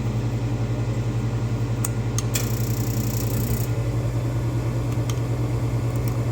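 Steady low hum of a garage furnace running, with a fast even pulsing. A few light clicks and about a second of high scraping hiss come a little past two seconds in.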